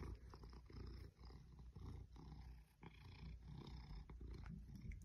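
Maine Coon cat purring: a low, continuous rumble that breaks off briefly twice.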